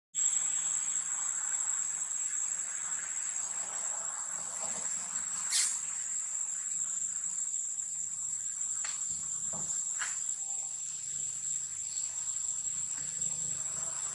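Steady, high-pitched buzzing drone of forest insects such as cicadas or crickets. About five and a half seconds in there is a short, sharper sound.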